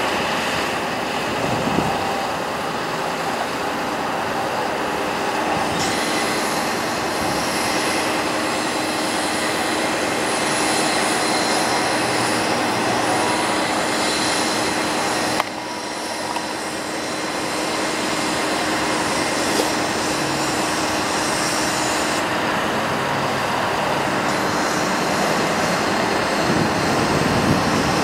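Ford F-550 bucket truck running with its PTO engaged, driving the hydraulics as the aerial boom raises: a steady mechanical running sound with a constant whine, shifting abruptly about halfway through.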